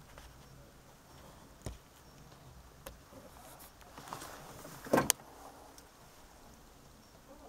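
A few light knocks and clicks over a quiet background, with a short, louder clatter of knocks about five seconds in; the boat's engine is not running.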